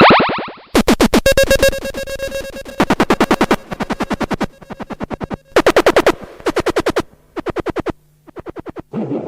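Electronic glitch sound effects: a loud falling sweep, then a string of short stuttering bursts in which one chopped synth sound repeats rapidly, about ten times a second.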